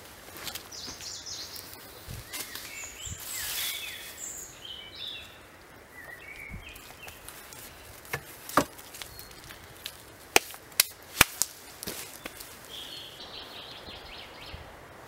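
Logs being handled and set onto a stacked log crib, with a few sharp wood-on-wood knocks, two about halfway through and three more a couple of seconds later. Small birds chirp in the background.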